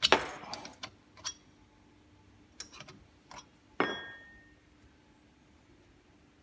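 Metal tool clinking against the front brake caliper while the lower caliper bolt is being undone: a series of separate sharp metallic clinks, the clearest just before four seconds in with a brief ring after it.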